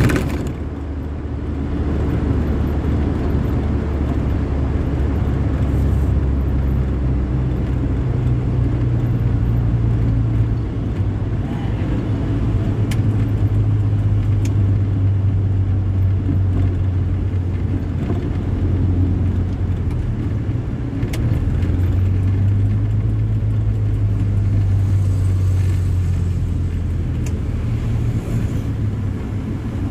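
A motor vehicle's engine running with a steady low drone over road rumble, its pitch shifting a few times as the speed changes.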